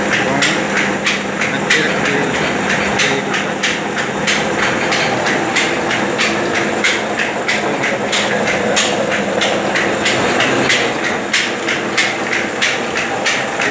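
Belt-driven electric stone grinding mill (chakki) running with a steady drone and a rapid, regular knocking, about three knocks a second.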